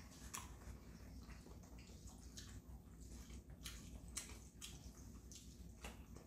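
Near silence with faint, scattered wet clicks of eating: jajangmyeon noodles being chewed and slurped.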